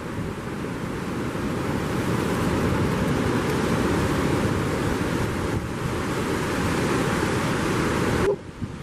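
Steady rushing of wind buffeting the microphone mixed with ocean surf, cutting off suddenly near the end.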